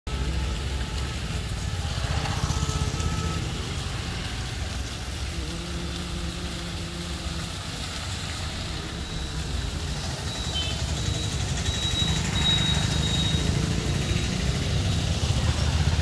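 Road traffic at a roundabout: vehicles pass over a steady low rumble, and a motorcycle's engine grows louder as it comes close near the end.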